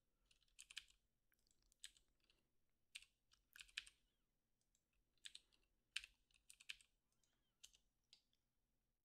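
Faint, scattered clicks of computer keyboard keys being pressed, about a dozen at irregular intervals, with near silence between them.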